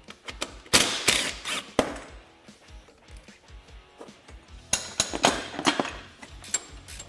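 Metal clicks and knocks of hand tools tightening the winch-mount bolts on the front bumper of a UTV, in two short bunches, about a second in and again about five seconds in, with faint background music under them.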